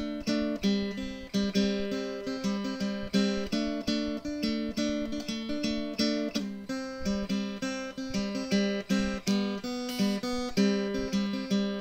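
Background music on acoustic guitar: plucked notes in a steady, even rhythm.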